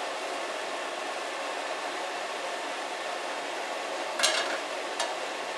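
Steady hiss of a lit gas hob burner under a frying pan heating oil. About four seconds in there is a short scrape, with a faint click a second later, as the pan is shifted on the burner grate.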